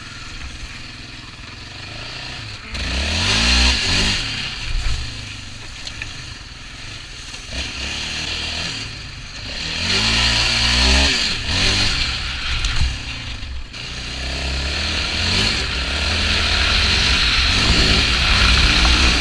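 Yamaha Raptor 700R ATV's single-cylinder four-stroke engine revving hard under acceleration, with the pitch climbing and falling through bursts of throttle about 3 s and 10 s in. From about 14 s in it builds steadily louder at full throttle, with wind noise on the helmet microphone.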